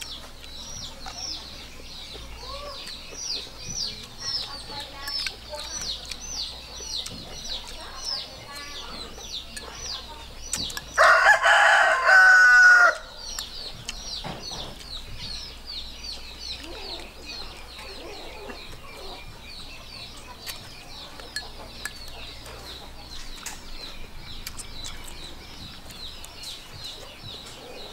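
A rooster crows once about eleven seconds in, loud and about two seconds long, over a steady run of short high chirps repeating a few times a second.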